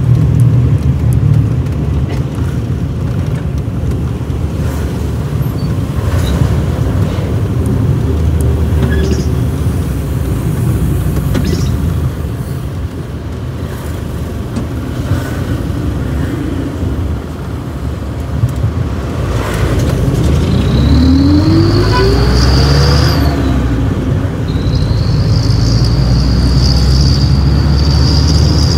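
Motor vehicle running, with a steady low rumble. About two-thirds of the way in its pitch rises steadily for a few seconds, and a high whine comes and goes near the end.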